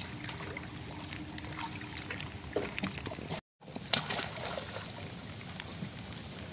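Pond water sloshing and splashing around men wading waist-deep as a large carp is caught by hand, with a sharp splash about four seconds in. The sound drops out for an instant just before that splash.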